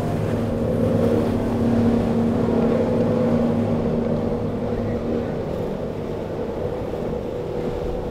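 Twin outboard motors of a walkaround sport-fishing boat running under power through rough water, a steady engine drone over the rush of water and spray. The drone is loudest in the first few seconds and eases a little after.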